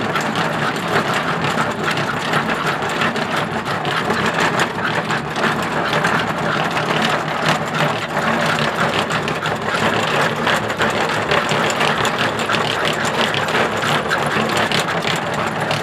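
Dog treadmill running steadily under a running Staffordshire Bull Terrier: a continuous, rapid mechanical clatter of the moving running surface.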